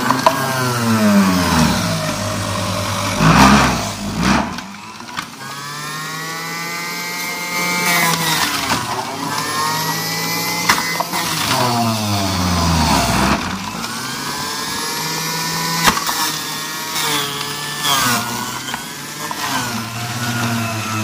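Electric centrifugal juicer's motor whining as carrots are pressed down the feed chute. Its pitch drops each time a carrot loads it and rises again as the carrot is shredded through, repeatedly, with short crunching clicks.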